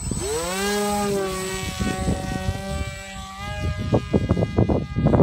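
Electric motor of a TekSumo flying wing throttling up for a hand launch: a whine that rises sharply in pitch in the first second, then holds steady as the plane flies away. Wind buffets the microphone throughout, with a few sharp knocks in the second half.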